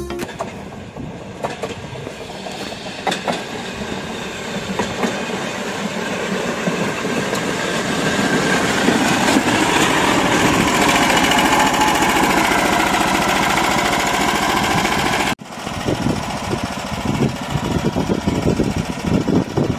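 Small engine of a railway motor trolley running as the trolley rolls along the rails, growing louder toward the middle. It breaks off sharply about three-quarters through, then the engine is heard idling with an uneven pulse.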